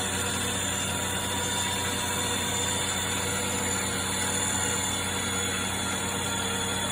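Steady running whir of a treadmill with a remote control car driving on its moving belt, a constant hum with a few fixed tones and no change in speed.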